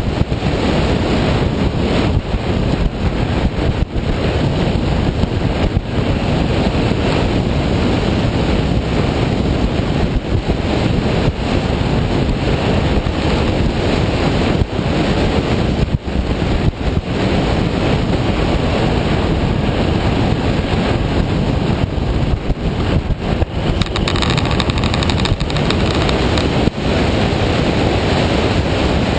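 Wind rushing over the microphone of a motorcycle riding at speed, a loud, steady rush that covers the engine.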